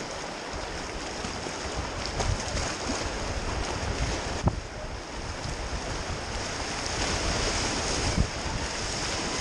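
Rushing whitewater of a river rapid around a kayak, with wind on the microphone and a few short paddle splashes. The water gets louder near the end as the kayak runs into a frothy wave train.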